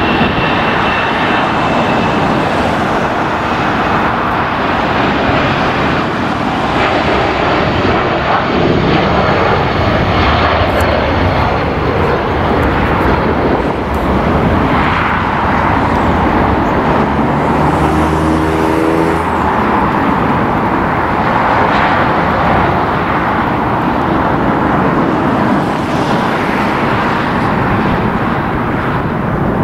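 Jet airliner engines, a loud steady rushing noise with a high whine that fades out in the first couple of seconds. A brief pitched hum rises slightly about two-thirds of the way through.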